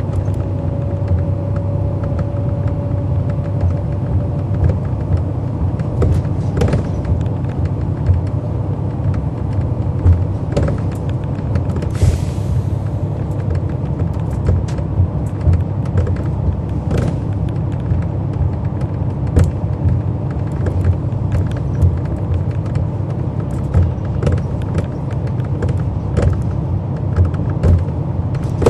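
Cummins ISL9 six-cylinder diesel of a 2011 NABI 40-SFW transit bus, heard from on board: a steady low rumble with frequent rattles and clicks from the body. A short burst of air hiss comes about twelve seconds in.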